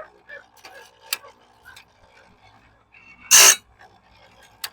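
Electric chainsaw-chain sharpener grinding a bandsaw blade tooth: a loud, short grinding burst about three seconds in over a faint steady motor hum, with a few light clicks between.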